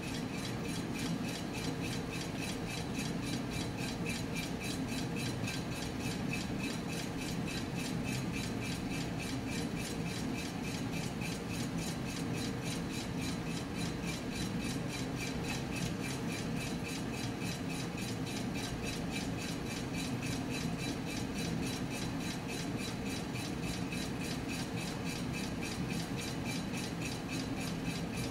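Homemade tin-can Stirling engine running steadily, with a rhythmic rubbing swish on every stroke: the steel wool in the displacer rubbing inside its cylinder.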